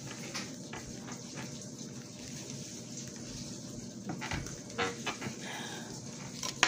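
Handling noise from hands working right by the phone's microphone: soft rustles and a few scattered knocks in the second half, the sharpest near the end, over a steady low room hum.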